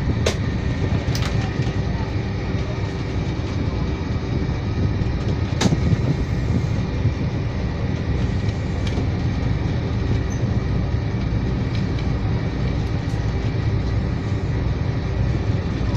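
A fishing boat's inboard engine running steadily, a dense low drone that fills the wheelhouse with an even level throughout. A single sharp knock sounds a little before the middle, with a few fainter clicks near the start.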